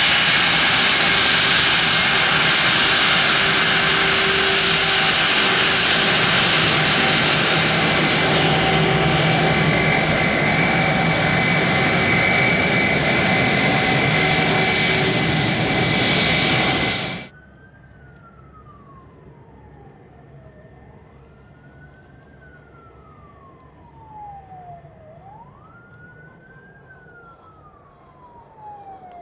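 The two turbofan engines of an Airbus A321-231 running loud and close: a steady jet noise with whining tones, which cuts off abruptly about seventeen seconds in. After that, much fainter, a siren wails, each cycle rising quickly and falling slowly over about four seconds.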